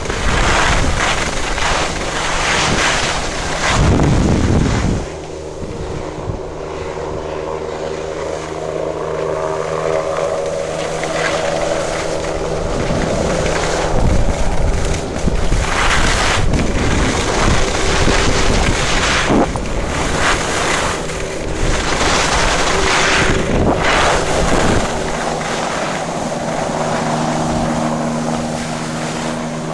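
Skis scraping and hissing over packed snow on a downhill run, with wind buffeting the microphone in gusts. From a few seconds in, a steady engine drone sits underneath.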